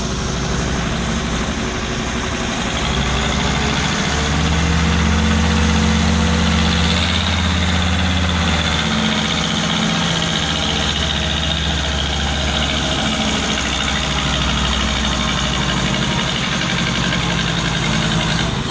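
SAME Laser 100 tractor's diesel engine running under load as it hauls a trailer piled with sugar cane. A whine rises in pitch over the first several seconds, the engine grows louder for a few seconds, then it runs steadily.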